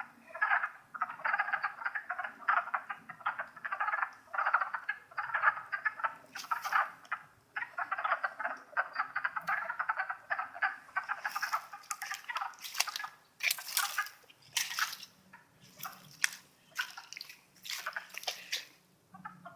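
A chorus of wood frogs giving rapid, overlapping duck-like clucking calls. In the second half, short sharp crackles are mixed in among the calls.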